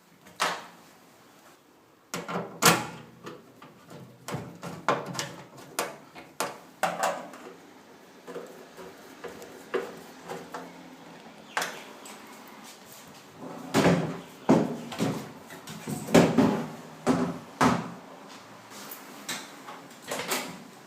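Irregular knocks, clicks and clunks of a microwave oven and its parts being handled, in clusters with the loudest strikes about two seconds in and again toward the last third.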